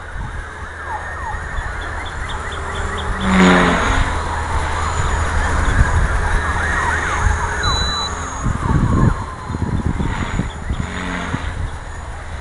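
Radio-controlled model airplane in flight, its motor's whine sliding up and down in pitch as the plane manoeuvres overhead. There is a brief thump about three and a half seconds in, and wind buffets the microphone in the second half.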